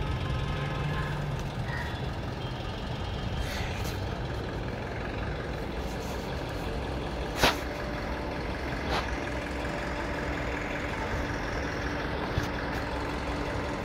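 Steady low hum of distant street traffic, with a sharp click about seven and a half seconds in and a fainter one near nine seconds.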